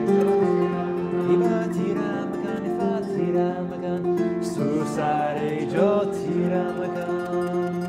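A West African kora, the Mandinka 21-string harp, being plucked in a continuous flowing melody over a repeating bass line, with the notes ringing on. It is tuned to the white keys of the piano.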